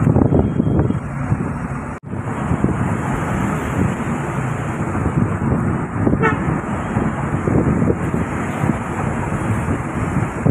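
Road noise and wind from a car driving at speed, heard from inside the car: a steady rushing noise, with a brief cut-out about two seconds in.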